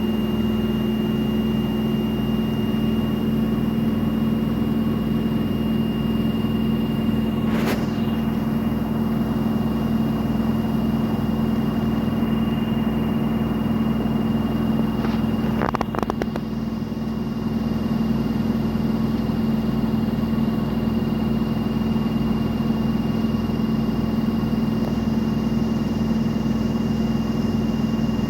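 Front-loading washing machine in a high-speed spin, running steadily with a strong hum and a thin high whine. There is a short click about eight seconds in and a brief rattle of clicks around sixteen seconds.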